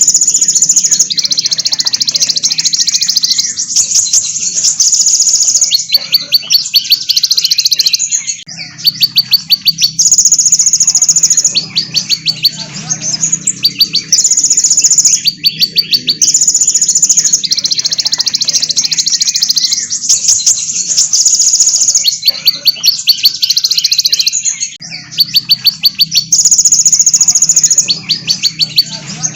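Small songbirds, sunbirds among them, singing fast, high-pitched trills and chattering runs of rapid repeated notes, phrase after phrase with short gaps, over a faint low hum.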